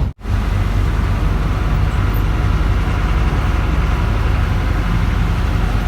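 Tour bus running, its engine rumble and road noise heard from inside the cabin, steady throughout apart from a split-second dropout just after the start.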